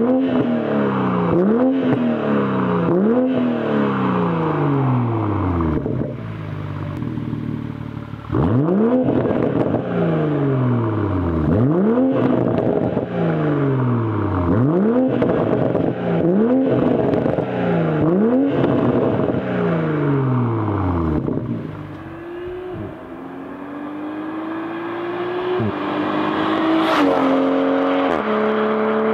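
BMW M340i's B58 turbocharged straight-six through an AWE Track Edition exhaust with straight-pipe rear sections and stock downpipe: a string of quick free revs, each one rising sharply and falling away. Then the car pulls away under hard acceleration, with the pitch climbing and a gear change near the end.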